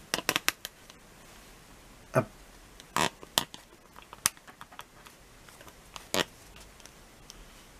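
Scattered small clicks and handling noises as a 1/6 scale action figure's head and neck are moved and tilted by hand, with a quick cluster of clicks at the start and single ticks every second or so after.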